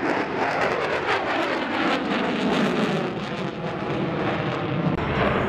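Jet noise of an F-35B Lightning II's single F135 afterburning turbofan as the fighter flies past overhead, a loud steady rush with sweeping shifts in tone as it passes.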